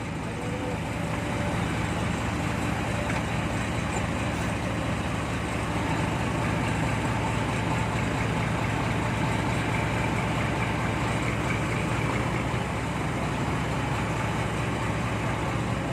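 Heavy diesel engine running steadily with a constant low hum.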